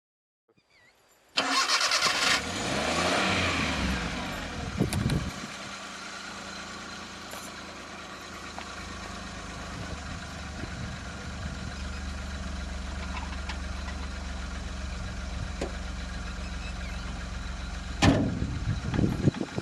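Car engine starting: a short burst of cranking, then the engine catches and revs up for a few seconds before dropping to a steady idle. A sharp knock comes near the end.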